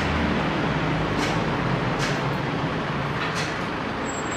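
Steady street traffic noise, with vehicles such as a bus running past.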